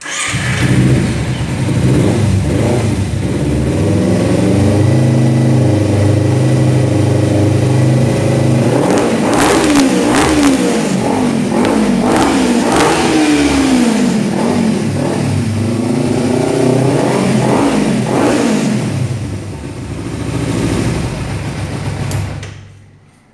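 Kawasaki Ninja 300's parallel-twin engine through a full Jeskap exhaust with a long tip. It runs steadily at first, then is revved in a series of quick throttle blips from about nine seconds in, settles back down, and stops just before the end. The note is deep ('bem grave').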